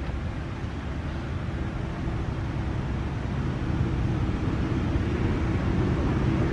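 Steady low engine rumble with a constant hum running through it, slowly getting louder.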